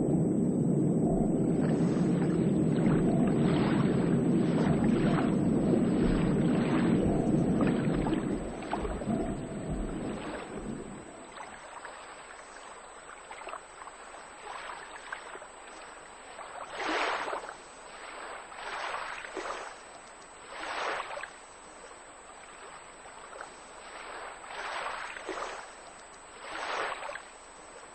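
Running water: a loud, steady rush for about the first eight seconds that fades out by around eleven seconds. After that it is quieter, with separate swells of lapping or splashing water every two seconds or so.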